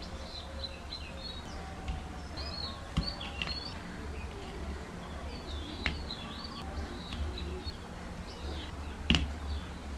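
Birds chirping repeatedly in the background over a steady low hum, with a few sharp clicks.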